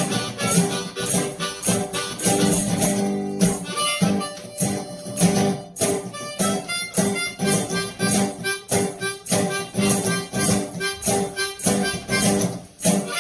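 Blues played by one person: a Hohner harmonica over a resonator guitar, with a foot tambourine keeping a steady beat.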